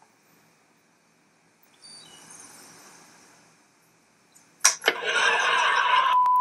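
Faint hiss, then about four and a half seconds in two sharp clicks and a loud burst of static-like noise, which gives way near the end to a steady high-pitched beep tone.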